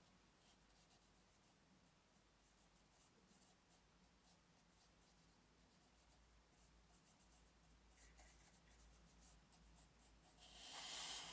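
Faint, quick scratchy strokes of a flat brush working graphite into rough watercolour paper, then a louder, longer scrub near the end.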